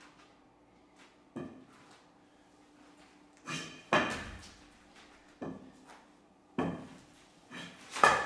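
Irregular sharp knocks and thumps, some in quick pairs, each with a short ring after it, loudest about 4 and 8 seconds in: a barefoot action painter stamping and stepping on paper spread over a hard floor while working with a long wooden pole.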